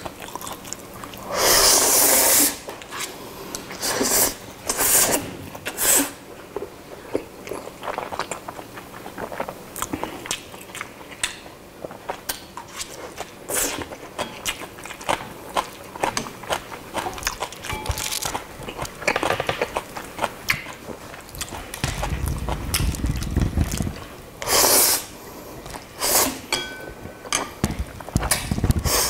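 A man slurping and chewing Chapagetti black-bean instant noodles close to the microphone: several loud slurps of about a second each, with wet chewing and mouth clicks in between.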